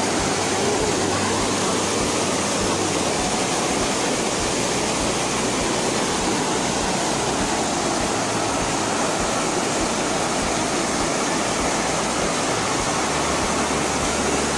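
Fast, strong-flowing mountain stream and waterfall: a loud, steady rush of water close by.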